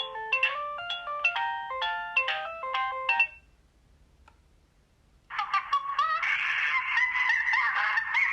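Alcatel OT 735 mobile phone's built-in polyphonic ringtones: a stepped melody of short notes ends about three seconds in, and after a brief pause a different, busier ringtone with sliding pitches begins.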